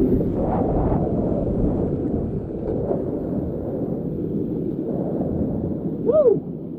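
Creek whitewater rushing steadily as a kayak runs the rapids, a low, even rushing noise with some wind buffeting on the microphone. About six seconds in, a short vocal cry falls in pitch.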